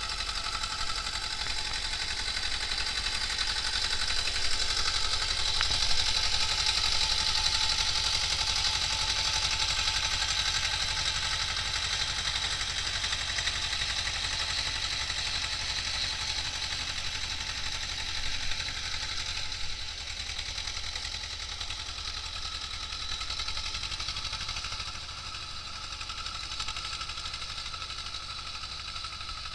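T-25 tractor's two-cylinder air-cooled diesel running steadily while it drives a rotary tiller, with a steady low rumble and a high whine over it. It grows louder over the first few seconds, then slowly fades.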